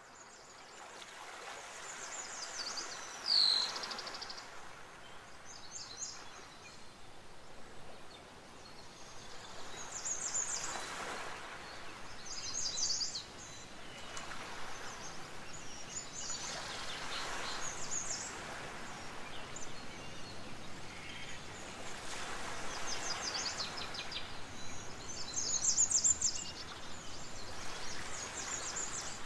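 Nature ambience: birds chirping in short, high, rapid trills every few seconds over a steady rushing noise that swells and fades.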